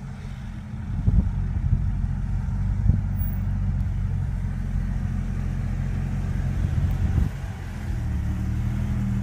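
Off-road vehicle engine running at low revs, with a few short thumps along the way; the engine note settles steadier near the end.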